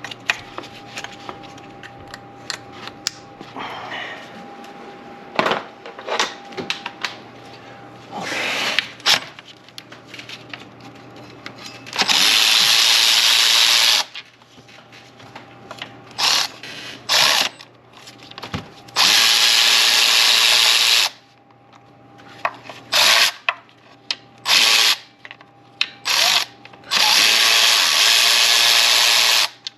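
Cordless power tool spinning valve cover bolts out, in three runs of about two seconds each with several short bursts between, and light clinks of tools and metal before it starts.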